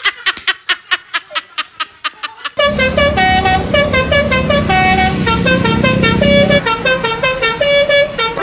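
A run of sharp clicks, about six a second, then from about two and a half seconds in a Basuri bus telolet horn playing a tune of short, changing notes. A low rumble sits under the first four seconds of the tune.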